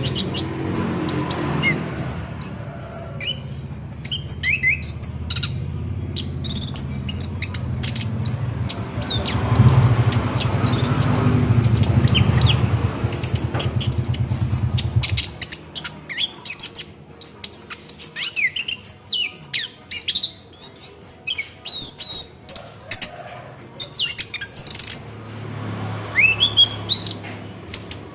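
Orange-headed thrush singing a fast, unbroken run of short whistled notes, chirps and trills, rolling on without pause. A low steady hum sits underneath for the first half, stops about halfway through, and comes back briefly near the end.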